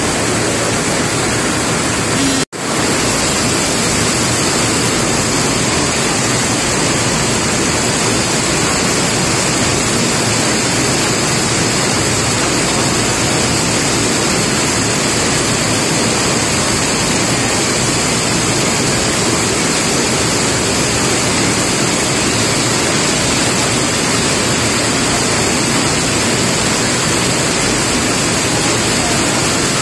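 Steady rain falling, an even hiss with no thunder. The sound drops out for an instant about two and a half seconds in.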